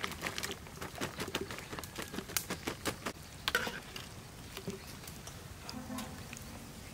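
Pumpkin chunks, long beans and small round eggplants tipped from a bamboo basket splash into a wok of water, then a wire skimmer stirs them in the water. A busy run of splashes and clicks for the first three seconds or so, thinning to sparser stirring after.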